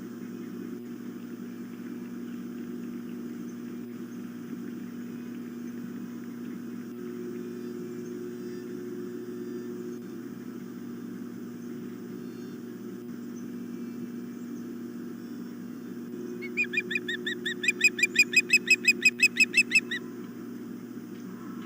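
Steady low electrical hum, then about 16 seconds in an osprey gives a rapid series of shrill whistled chirps, about six a second, growing louder over some three and a half seconds.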